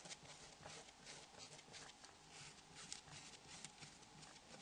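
Near silence, with faint, irregular soft ticks about two or three times a second.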